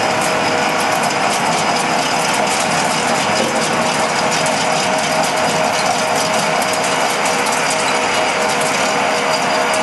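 Small CNC pipe-threading lathe running: a steady whine over a dense, even rattle of fine clicks.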